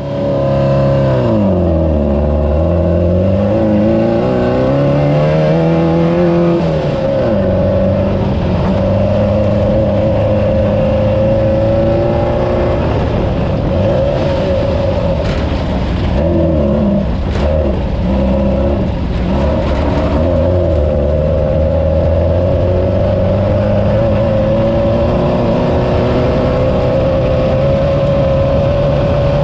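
Air-cooled VW flat-four engine of a Class 9 off-road race buggy running hard at high revs. Its pitch drops and climbs back twice in the first few seconds as it comes off the throttle or shifts, then holds mostly steady at speed. A few sharp knocks come in the middle stretch.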